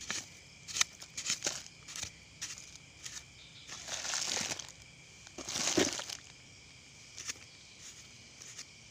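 Digging by hand in loose soil and leaf litter: scattered crackles and small clicks of dirt being broken up, with two longer scraping rushes about four and six seconds in.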